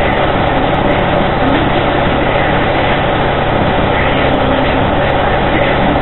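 Fire truck's diesel engine running steadily, a loud constant drone with no change in pitch.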